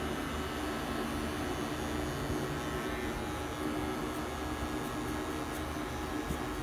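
Electric hair clipper running with a steady hum as it cuts short hair on the side of a head.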